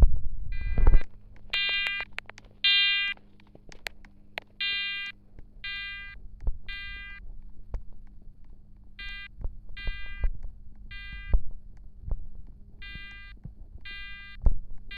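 Fire alarm horns sounding a temporal-three pattern: three short electronic beeps, a pause, then three more, repeating. This is the standard fire evacuation signal. A few low knocks come in the first second, over a faint steady hum.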